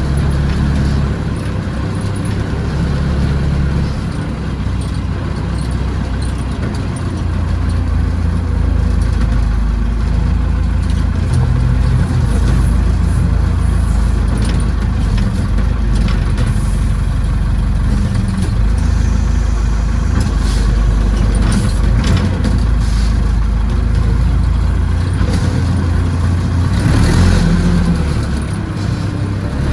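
Massey Ferguson backhoe's engine running, its note shifting up and down with load several times, with scattered clanks and knocks throughout and the loudest moment near the end.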